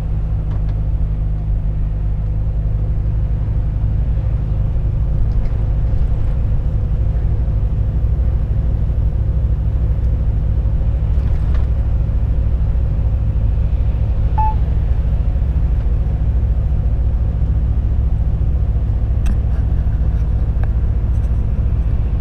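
Volvo FH 460 truck's 13-litre straight-six diesel engine running steadily while driving at road speed, heard from inside the cab as a steady low drone mixed with tyre and road noise.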